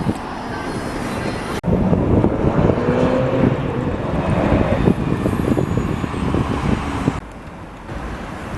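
A vehicle running, with heavy wind noise on the microphone. The sound breaks off abruptly about a second and a half in and drops sharply in level about seven seconds in.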